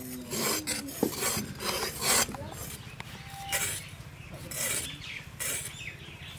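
Bottle gourds being scraped and sliced against boti blades, curved steel blades fixed upright on a footboard: a run of short, irregular rasping strokes as the blades cut through the gourds' skin and flesh, several cutters working at once.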